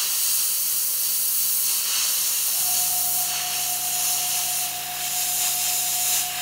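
Gravity-feed airbrush hissing steadily as it sprays gunmetal metallic paint. About two and a half seconds in, a steady low hum with a thin whine joins the hiss.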